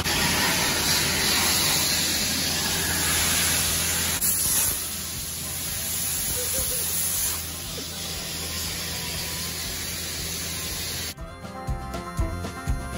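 Abrasive blasting in a blast booth: the steady hiss of a sandblasting nozzle. About eleven seconds in it cuts off suddenly and background music starts.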